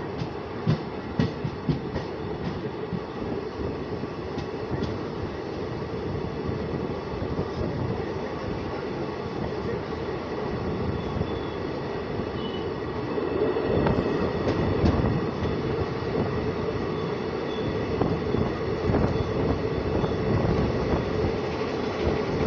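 Passenger express coaches rolling past on the adjacent track at close range: a steady rumble of wheels and bogies with sharp clacks over rail joints early on. It grows louder about halfway through.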